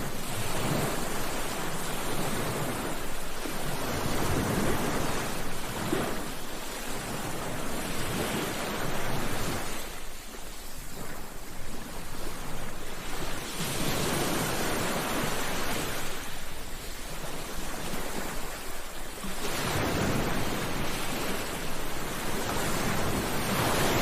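Sea surf: waves breaking and washing up a beach in a continuous hiss that swells and falls every few seconds, easing off for a few seconds near the middle.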